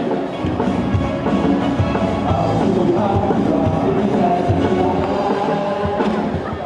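Loud upbeat rock-style cheer song with a drum kit keeping a steady beat.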